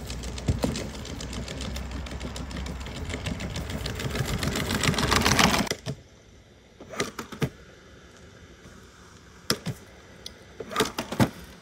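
Quadruped robot dog on the move: a fast, dense mechanical clatter of its leg motors and feet that grows louder and cuts off about six seconds in. After that, only a few scattered clicks over a low background.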